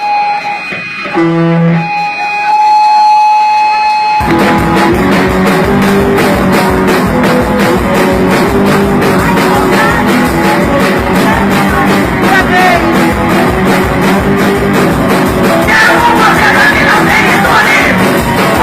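A live punk rock band: for the first few seconds there are held guitar tones and a few single notes, then about four seconds in the full band comes in with distorted guitars, bass and a steady drum beat.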